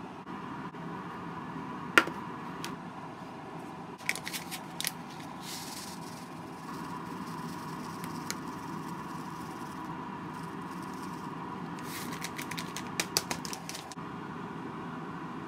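Light clatter of food being packed into a stainless steel bento box: one sharp click about two seconds in, then short runs of rattly clicks and rustling around four seconds in and again near the end, as a seasoning packet is handled over the rice. A steady hum with a faint high whine sits under it all.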